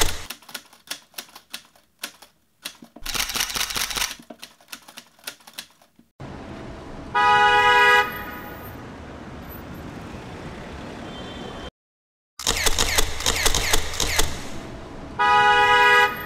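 Rapid irregular clicking like typing, then a car horn honks for about a second over a steady hiss. More clicking follows, and the horn honks a second time near the end.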